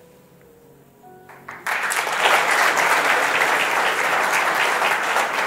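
Faint plucked-string music, then about a second and a half in an audience's applause starts suddenly and carries on loudly.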